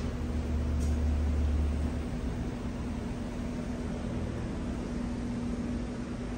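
Steady mechanical hum with a constant drone, and a heavier low rumble during the first two seconds.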